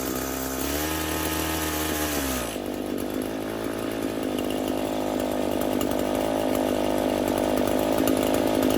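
Echo SRM-225 string trimmer's two-stroke engine running, revving up briefly about a second in and dropping back to a steady speed. It is still not running right, the sign of a dirty carburetor.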